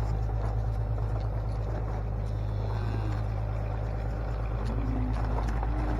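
An engine running steadily at idle, a constant low hum, with scattered light knocks and clatter over it.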